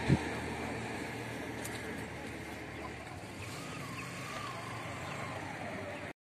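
A motor vehicle's engine runs steadily with a low hum, and there is one short knock just after the start.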